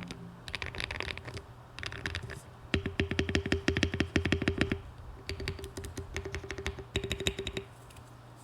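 Typing on a Monsgeek M1 aluminium-case mechanical keyboard with hand-lubed Akko Cream Yellow linear switches and ASA-profile keycaps. The keystrokes come in short bursts, with a long, very fast run of rapid strokes in the middle, and stop shortly before the end.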